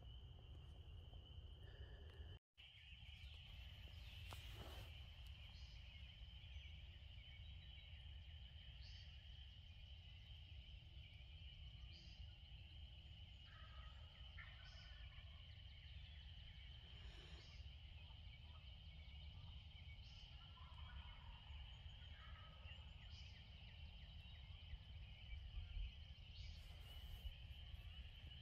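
Faint wild turkey gobbles, repeated several times at intervals of a few seconds, over a steady high-pitched chorus.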